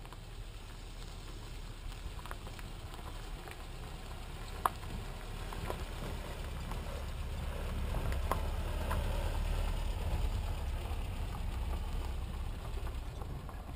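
Small pickup truck driving up a dirt road, its engine rumble and tyre noise growing louder as it approaches and passes, with a few sharp clicks along the way.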